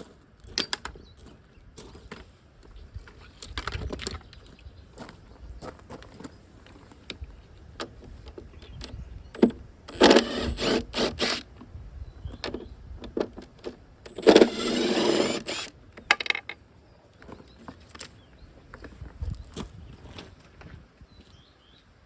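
Tools and metal hardware clicking and clattering while a battery pack is taken apart, with two louder noisy bursts of handling about ten and fourteen seconds in.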